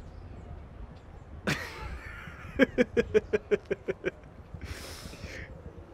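A man laughing: a sharp intake of breath about one and a half seconds in, then a quick run of pitched "ha" pulses, about seven a second, and a breathy exhale near the end.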